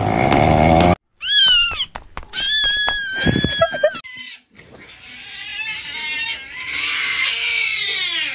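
Cat meme sound clips: a rasping snore-like sound for about a second, then two short high cat meows that slide down in pitch, about a second apart. A longer, quieter drawn-out sound follows.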